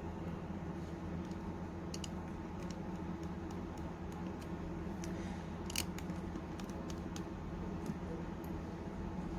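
Small scattered clicks and taps of tools and small metal parts being handled during iPhone reassembly, the sharpest about six seconds in, over a steady low electrical hum.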